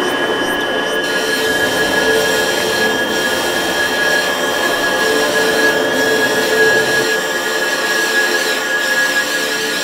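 Experimental noise track: a dense, steady noise drone with several high tones held under it and no beat.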